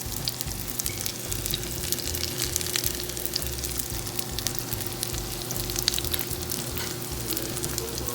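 Okoy batter fritters frying in hot oil: a steady sizzle dotted with sharp pops and crackles.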